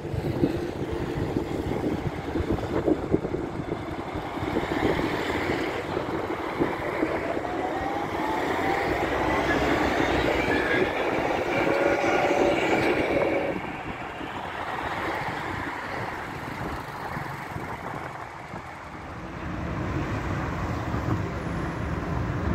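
Modern low-floor electric tram passing close by on the rails: steady rumble of wheels on track with a rising whine from its motors, loudest just past halfway and then dropping away suddenly.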